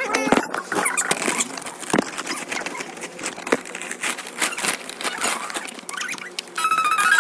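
Rustling, crackling handling noise with scattered clicks and short squeaks, as when a gift is unwrapped. About six and a half seconds in, a tinkly electronic melody starts.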